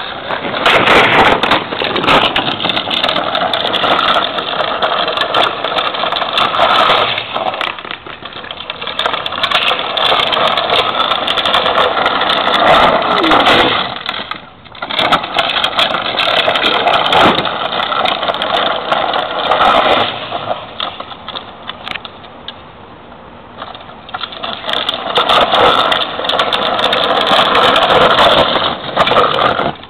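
Hard wheels rolling over rough asphalt: first a skateboard, then a Green Machine trike's plastic wheels rumbling and rattling. The noise is loud and continuous, with a couple of short dips and a quieter stretch a little past the middle before it grows loud again near the end.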